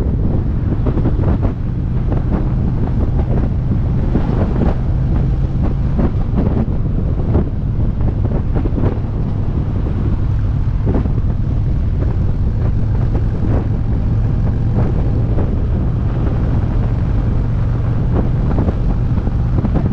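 Motorcycle riding on the open road: the engine runs as a steady low hum under heavy wind buffeting on the microphone.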